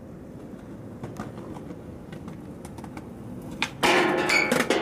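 Skateboard rolling on concrete with scattered clicks. About four seconds in comes a sharp pop, and then the loud ringing scrape of the board sliding down a wet metal stair handrail.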